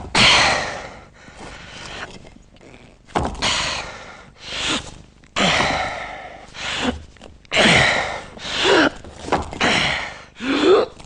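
A man's heavy, laboured breathing and groaning under strain: repeated loud, breathy heaves and gasps, several trailing off into falling groans, the sounds of pushing a great weight.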